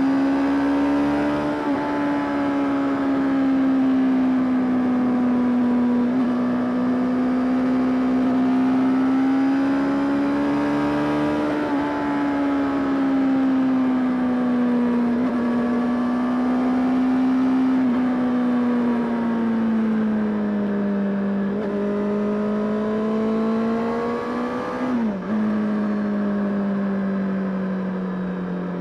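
Honda CBR600RR (PC37) inline-four engine running hard on the road, its pitch rising and falling with throttle and gear changes, with short breaks in the note every few seconds. About 25 s in there is a sharp blip, and near the end the note falls steadily as the bike slows.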